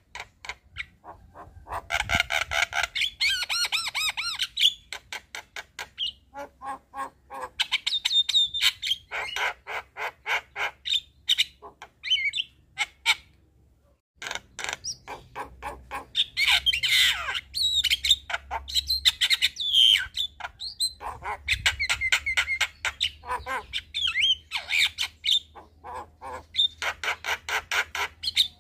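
Javan myna singing: fast runs of rapid chattering notes mixed with harsh squawks and whistled, gliding phrases, breaking off briefly about halfway through before starting again.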